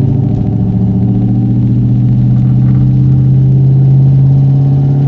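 1998 Mustang Cobra's 4.6 L DOHC V8 running at a steady engine speed while the car is driven, swelling slightly about halfway through. The engine is one whose owner is chasing a tap or rattle that comes on when warm, mostly at cruising rpm between 2,000 and 3,000 rpm.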